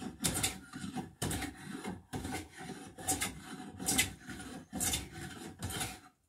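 Small hand bench plane taking repeated strokes along an oak boat knee, each pass a rasping shave of the blade through the wood, roughly one stroke a second. The planing stops just before the end.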